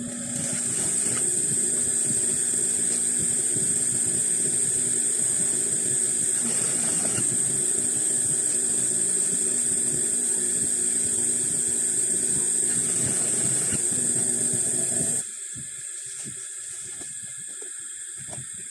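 Industrial sewing machine running steadily as it stitches fabric, with a high hiss over the motor. It stops about fifteen seconds in, leaving a fainter steady sound.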